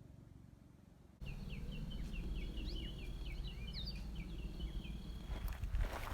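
A bird singing a quick run of high chirps over a steady low rumble, after a sudden cut about a second in. Near the end come some clicks and knocks.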